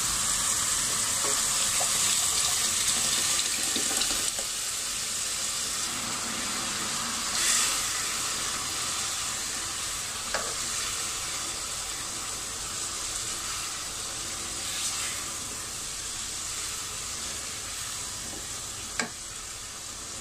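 Pot of beef broth bubbling at a boil, a steady sizzling hiss that slowly quietens as the soaked lentil-and-wheat haleem mix is poured in and stirred with a silicone spatula. A couple of brief knocks against the pot, about halfway through and near the end.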